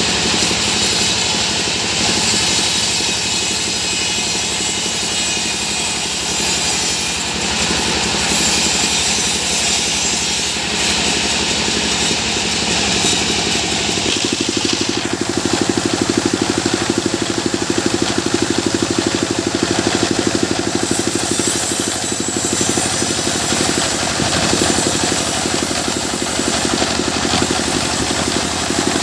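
Sawmill machinery running loudly and steadily. About halfway through, a high hiss drops away and a lower, pulsing engine sound comes to the fore.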